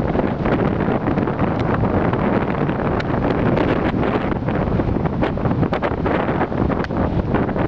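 Storm wind from Hurricane Sandy buffeting the microphone: a loud, continuous rushing noise with frequent sharp crackles.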